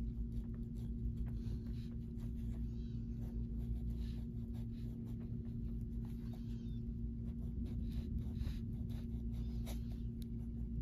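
Wax crayon scratching across a coloring-book page in short, irregular strokes, over a steady low hum.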